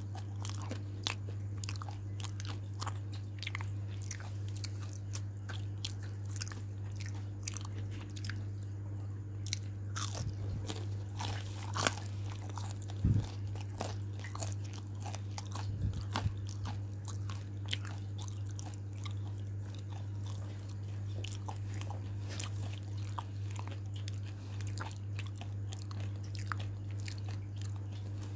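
A person chewing crunchy fried chicken breading with many short crisp crunches, a few louder bites around the middle, over a steady low electrical hum.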